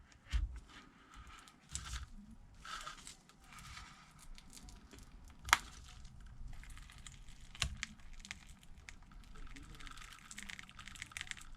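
Digitizer glass of an iPad Air being pried and peeled away from its adhesive with a thin opening tool. There is soft crackling and scraping, with scattered sharp clicks; the sharpest comes about five and a half seconds in and another near eight seconds.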